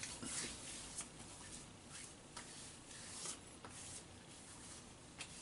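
Hands rubbing and patting aftershave onto freshly shaved skin: faint rubbing with a few soft pats spread through.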